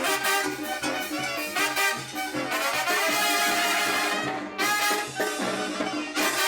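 Dance music led by trumpets and trombones over a steady bass beat, with a long held brass chord in the middle that breaks off briefly before the band comes back in.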